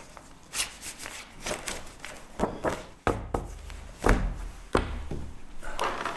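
Paper and cardboard folders rustling as they are handled and flung onto a cluttered table, with several dull thuds as they land.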